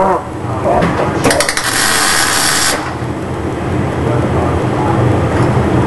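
A short burst of welding, about a second and a half of crackling hiss that starts with a few sharp clicks and cuts off suddenly, over a steady low hum of workshop equipment.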